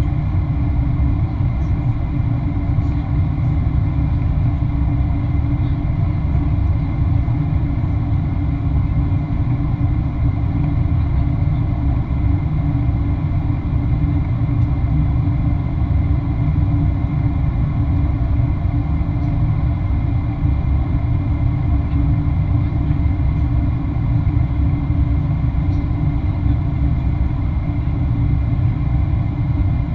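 Steady cabin rumble of a Boeing 737-800 descending, heard at a window seat beside the wing and engine: the CFM56-7B turbofans and the airflow over the fuselage, with a few faint steady tones on top.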